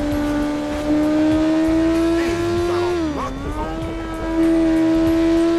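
Motorcycle engine running at road speed with a slowly climbing pitch. The pitch dips sharply about three seconds in, then climbs back up.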